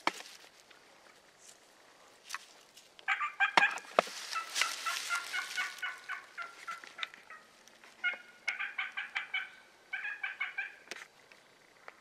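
Wild turkey gobblers gobbling: several rapid, rattling gobbles in a row starting about three seconds in, with a noisy rush under the second one.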